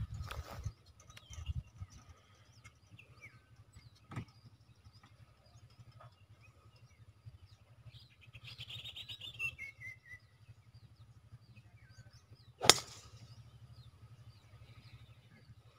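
A golf driver striking a ball off the tee: one sharp crack about three-quarters of the way through, the loudest sound here. Birds chirp and call in the background.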